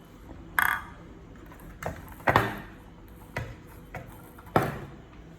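A series of about six sharp knocks at uneven intervals, the loudest three with a short ringing tail.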